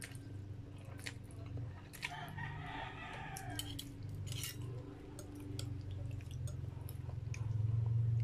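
Noodles being slurped and eaten, with short clicks of a metal fork and spoon against a glass bowl. A rooster crows once about two seconds in, over a steady low hum.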